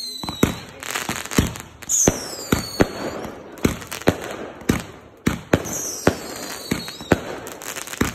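Fireworks going off in a volley: a quick, irregular run of sharp bangs and pops, with high whistles that fall in pitch several times over them.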